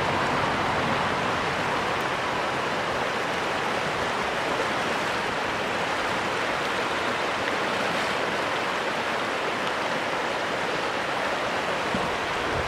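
Steady rush of a shallow river running over rocky riffles.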